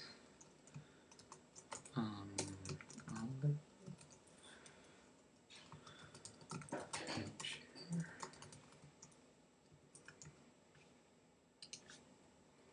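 Computer keyboard typing: scattered key clicks in short runs. A low voice sounds briefly twice, about two seconds in and again around seven seconds.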